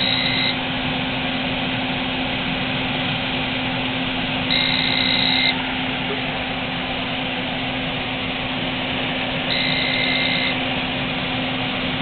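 Coleman manufactured-home furnace with its big blower fan running: a steady rush of air over a low hum. An alarm beeps three times, each beep about a second long and about five seconds apart, which the owner puts down to a failure in the blend-air intake control.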